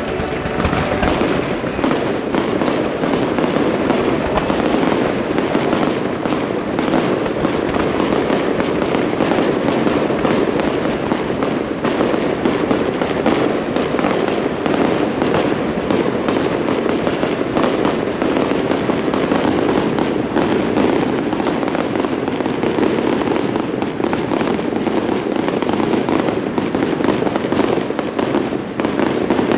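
Fireworks display going off: a dense, unbroken crackle of rapid pops and bursts.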